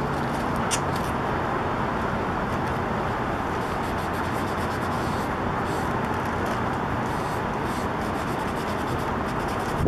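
Steady city traffic noise, with soft rubbing from a cloth wiping a leather riding boot and a short high click under a second in.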